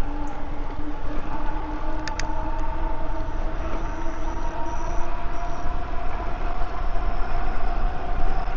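Electric bike riding along: a steady rush of wind and rolling noise with the motor's whine, several steady tones that drift slowly in pitch, and a couple of short clicks about two seconds in.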